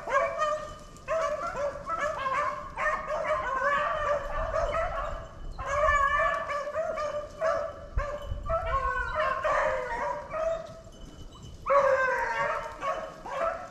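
A pack of beagles baying on a swamp rabbit's trail, several dogs' voices overlapping in a near-continuous chorus with a few brief pauses: the hounds are running the rabbit.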